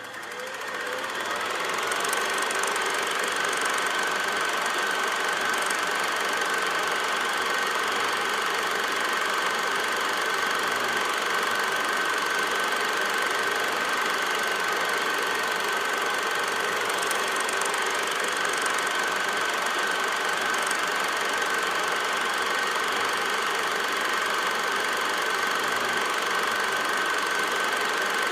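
8 mm film projector running: its motor spins up over the first two seconds, then whirs and clatters steadily with a high steady tone.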